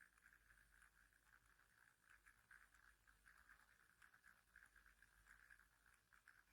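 Near silence: faint room tone with a thin, flickering hiss.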